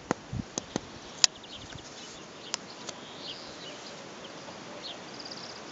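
A few sharp clicks and knocks in the first three seconds, the loudest about a second in, over a steady open-air hiss. Faint bird chirps come in the second half, with a short high trill near the end.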